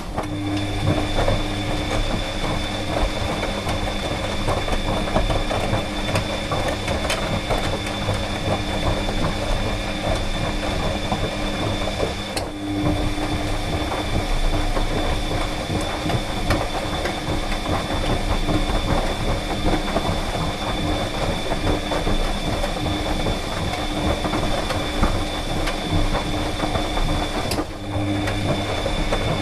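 Clothes dryer running, a steady hum over the dense, busy churn of its turning drum. The sound dips briefly twice, near the middle and near the end.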